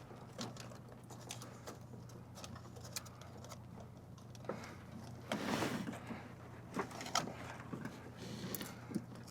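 Scattered faint clicks and ticks as a wire's spade terminal is worked loose from a fuse block, with a louder scraping rustle about five seconds in, over a steady low hum.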